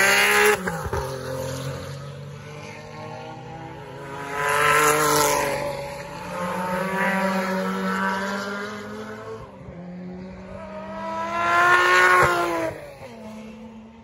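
1970s–80s touring race cars passing at speed one after another, about four in all, each engine revving high and then dropping in pitch as it goes by.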